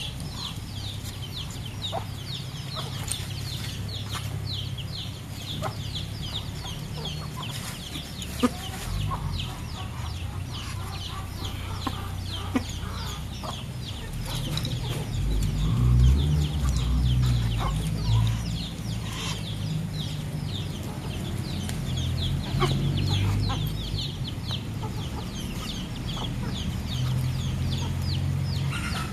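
Backyard poultry feeding, chickens clucking among a flock of Muscovy ducks, with rapid high chirping throughout. A low rumble swells for a few seconds around the middle.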